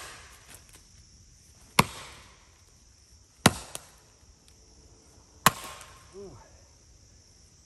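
Axe chopping into the trunk of a standing dead red oak: three sharp strikes roughly two seconds apart, biting into very hard dead wood.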